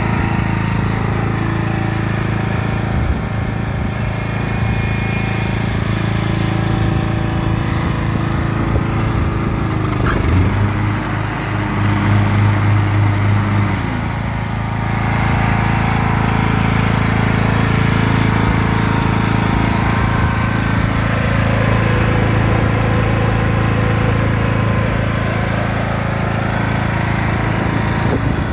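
Cub Cadet XT1 riding lawn mower's gasoline engine running steadily as the mower drives over gravel. About ten seconds in, the engine pitch dips briefly, then it runs louder for a few seconds before settling back to its steady running.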